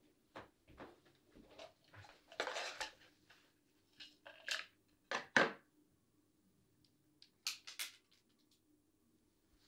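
Objects being handled on a shelf: rustling and a string of light knocks and clicks as a wooden picture frame and other small items are picked up and set down. The sharpest clicks come about five seconds in and again about two seconds later, over a faint steady room hum.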